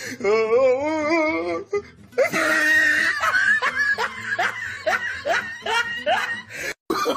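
Laughter mixed with music: a wavering held voice for the first second and a half, then, after a short gap, a run of short rising laugh-like bursts about three a second, cut off briefly near the end.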